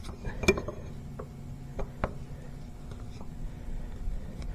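A few light, scattered metal clicks and scrapes of a 3/8-inch drive breaker bar turning a hydrostatic pump's drain plug out, over a low steady hum.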